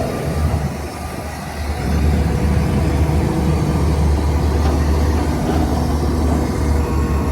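Shantui bulldozer's diesel engine running steadily, easing off briefly about a second in and then picking up again.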